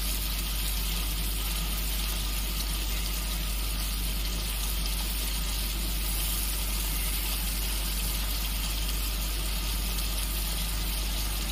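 Onion paste and ginger-garlic paste frying in hot oil in a pan: a steady sizzle, with a steady low hum underneath.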